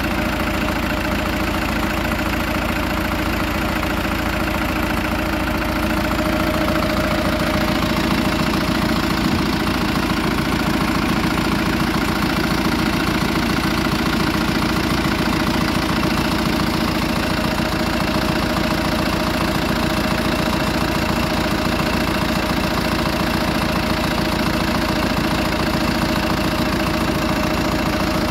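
Zetor 7340 Turbo tractor's four-cylinder turbo diesel running steadily under load while pulling a plough, a little louder from about six seconds in.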